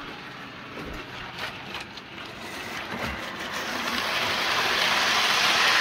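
Hornby Virgin 125 HST model train running at full power along the track, its motor and wheels on the rails making a steady whirring rumble that grows louder as it comes close.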